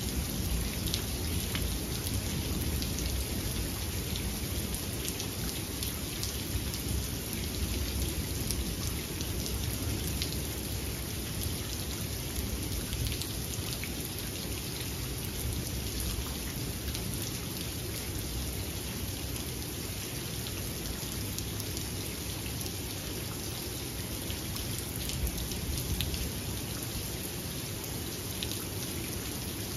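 Steady rain falling, with a dense patter of individual drops and a low rumble of thunder underneath that swells slightly now and then.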